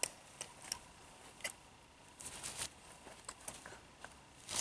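Footsteps on a forest trail: scattered faint crackles and clicks with a few short rustles, the loudest rustle near the end.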